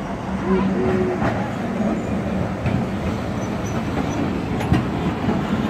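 Vintage double-decker electric tram rolling in on its rails and drawing up at the stop: steady running noise of steel wheels on track with a low hum, and a single sharp click a little under five seconds in.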